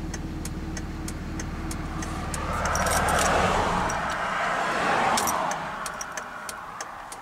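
Cummins 5.9-litre straight-six diesel in a 2005 Dodge Ram 2500 idling, then switched off with the ignition key. Keys jangle and the engine stops about three seconds in. A rushing noise swells and fades over the next couple of seconds, with light clicking throughout.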